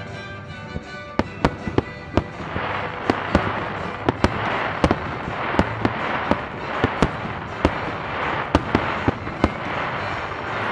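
Fireworks display: a quick run of sharp bangs, about two a second, with a dense crackle that fills in about two seconds in. Music plays faintly underneath at first.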